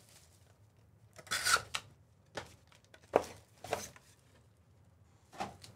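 Plastic shrink-wrap being torn off a sealed trading-card hobby box, then the cardboard box opened and its foil packs slid out. The sound is a few short rips and rustles with a sharp snap, the loudest rip about a second and a half in.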